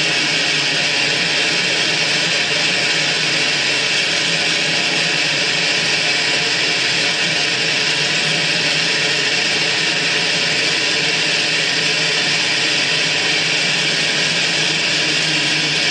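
Harsh noise music from electronics: a loud, steady wall of hissing noise with faint held tones underneath, hardly changing.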